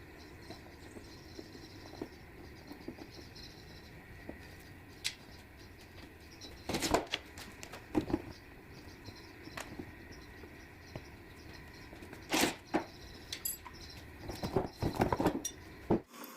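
Scattered clicks and short clusters of knocks from hand tools and engine parts being handled, over a steady low background hum.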